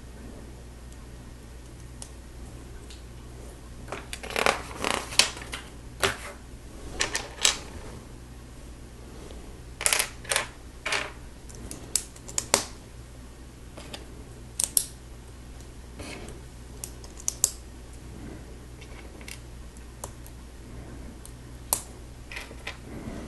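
Plastic Lego bricks clicking and clattering as pieces are handled and pressed together, in irregular clusters of sharp clicks.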